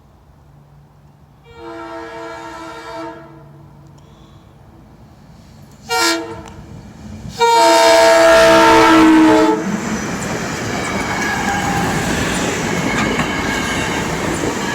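A SEPTA Regional Rail train's horn sounds a chord three times: a blast about a second and a half in, a short toot around six seconds, and the loudest, longest blast from about seven and a half to nine and a half seconds. The train then passes close by with a steady rush of wheel and rail noise.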